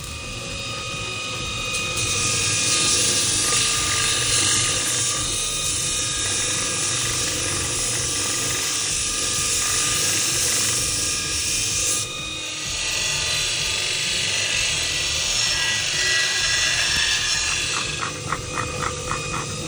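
Belt grinder grinding a chrome-plated steel motorcycle part, a steady high hiss of abrasive belt on metal. It breaks off briefly about twelve seconds in, then resumes. Near the end comes a run of quick pulses, about five a second.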